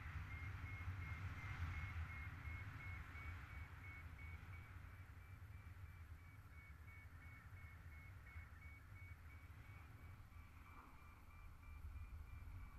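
Wind rumbling on the microphone of a paraglider's camera, with a paragliding variometer giving a run of rapid, high beeps at a nearly steady pitch throughout, the beeping that signals the glider is climbing.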